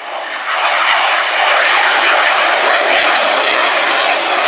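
Jet aircraft flying past, its engines making a loud, even roar that builds about half a second in and stays loud.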